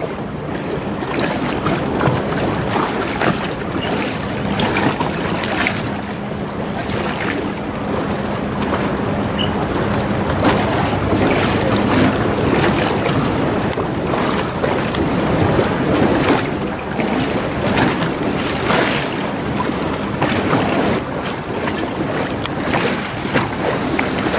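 Wind gusting across the microphone in repeated surges, over a faint steady low hum that fades out about halfway through.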